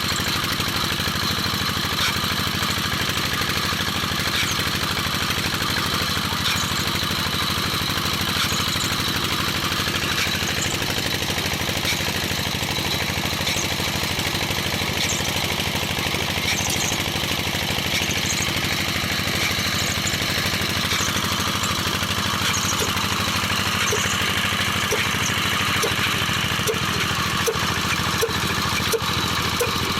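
Old stationary diesel engine running steadily at an even pace, with light regular ticking joining in near the end.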